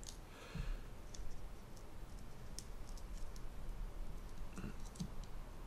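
A few faint, irregular clicks and taps of small metal parts as hands work the hammer strut and hammer spring on a SIG Sauer P229 pistol frame, pushing the strut back to take off the spring tension.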